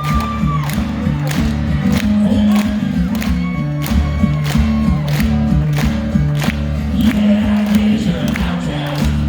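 Acoustic guitar playing a driving rhythm riff, with the audience keeping a steady beat of about two strokes a second and cheering over it.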